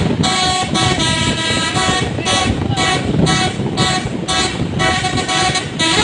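Bus's multi-tone telolet 'basuri' horn playing a rhythmic tune of short, pitched notes, about two a second.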